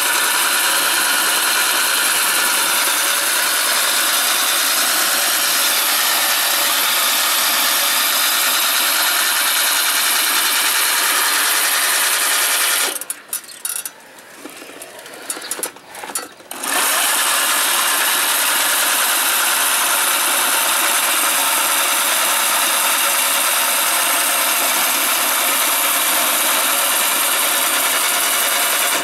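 Electric CIM motors and gearbox spinning the reel of a remote-controlled reel lawn mower as it cuts grass: a steady, loud whir. It drops away for about four seconds near the middle, then resumes.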